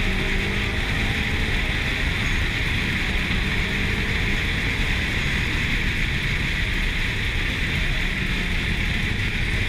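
Steady wind rushing and buffeting over a camera mounted on the outside of a car at track speed: a loud hiss over a low rumble. The car's engine is only faintly heard underneath.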